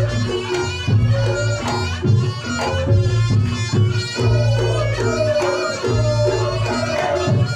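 Reog Ponorogo gamelan music: a slompret shawm plays a wavering, reedy melody over kendang drum strokes, with low gong tones booming about once a second.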